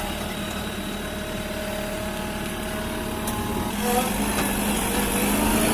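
Diesel engine running steadily; a little under four seconds in, its note rises and gets louder as the engine speeds up.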